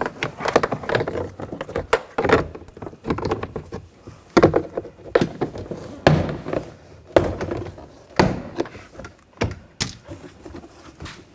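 Door-panel retaining clips popping out one after another as a trim tool pries the door card away from the front door of a Buick Encore. The result is a string of sharp, irregular pops and knocks.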